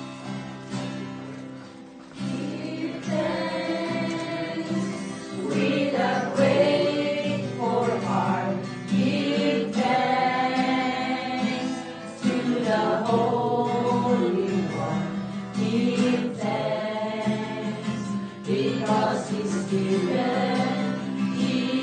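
A small group of people singing a hymn together, accompanied by a strummed acoustic guitar.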